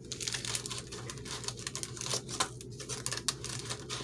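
Clear cellophane packets of paper embellishments crinkling and crackling in the hands as they are pushed into a papercraft shelf, with irregular small clicks and rustles. A steady low hum lies underneath.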